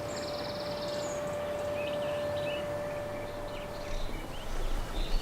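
Small birds chirping and trilling over a steady outdoor background hiss. A single steady tone is held through the first few seconds and then stops.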